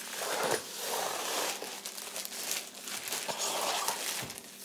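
Packaging crinkling and rustling in irregular bursts as a product box holding a set of floating shelves is opened by hand.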